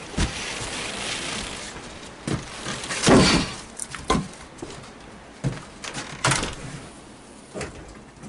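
An armload of split firewood dropped into a wooden wood box: the logs crash in about three seconds in, then several knocks as pieces are set in place. A door bangs shut near the end, and wind rushes in through the open door at the start.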